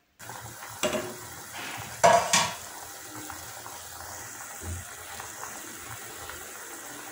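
A spatula stirring macaroni in a metal saucepan of boiling water, knocking against the pan a few times in the first two seconds or so. Then a steady hiss of the water boiling.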